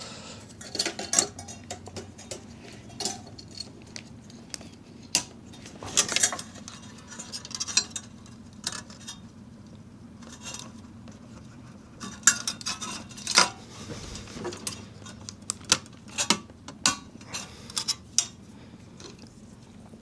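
Metal fan clips and a plastic cooler fan clicking, clinking and scraping against a Montech Air 903 Max CPU cooler's heatsink as the fan is fitted, in irregular scattered clicks and short rattles.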